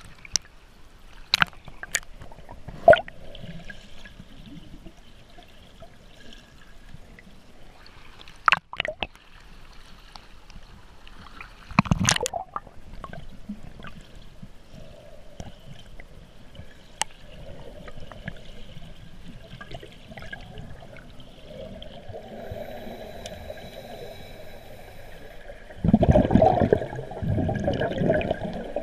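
Seawater sloshing and splashing around an underwater camera at the surface, with several sharp knocks, then the muffled wash of water once under. About 26 s in, a loud, pulsing bubbling begins: a scuba diver's exhaled bubbles from the regulator.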